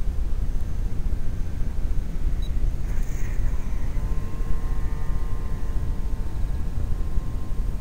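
Wind rumbling on the microphone, with the faint steady whine of an electric radio-controlled model plane's motor and propeller coming in about four seconds in.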